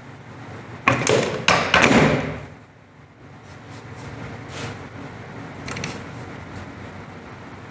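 Chiropractic drop table: sections of the padded table dropping with two loud thuds about half a second apart, about a second in, then a few fainter knocks.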